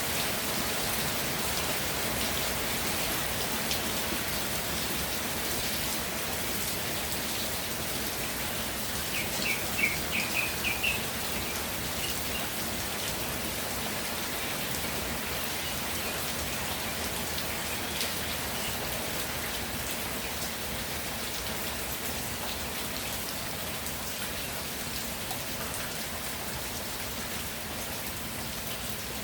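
Steady rainfall pattering on the ground and surfaces. About ten seconds in, a short run of quick high chirps rises above the rain.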